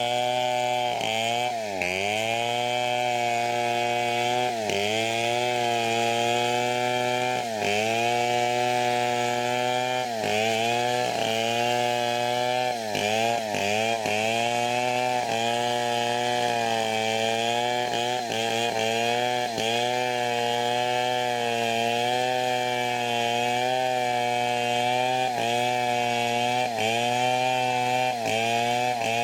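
Chainsaw running at high throttle while ripping teak lengthwise, its pitch sagging briefly every second or few as the chain bites into the wood, then recovering.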